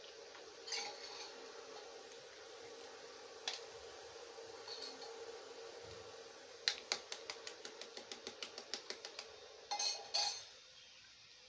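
Eggs being cracked on a small steel bowl: a few scattered clinks, then a quick run of light taps about six a second, and two louder knocks near the end, over a faint steady hum.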